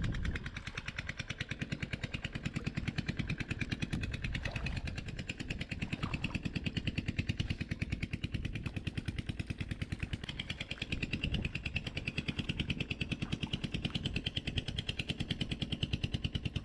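Small boat engine running steadily with a rapid, even putter.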